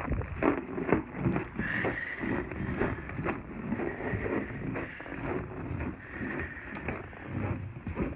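Footsteps crunching in packed snow at a steady walking pace, a couple of steps a second.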